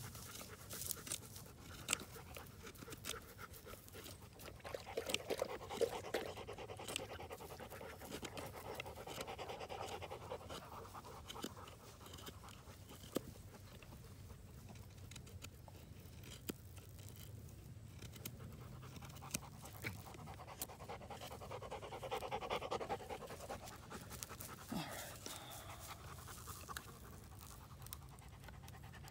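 A dog panting in stretches, with small sharp clicks and scrapes from a knife shaving dry wood.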